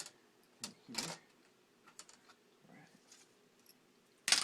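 Plastic screen bezel of a laptop being pried off its display: scattered small plastic clicks, then a louder crackling of plastic near the end.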